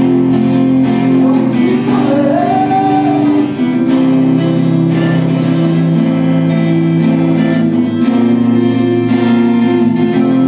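Acoustic guitar played live, with steady ringing chords. A short melody line rises and falls over them about two seconds in.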